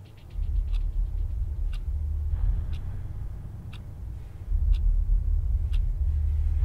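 A deep, loud rumble swells in just after the start and surges again about halfway through. Over it, a clock ticks steadily once a second.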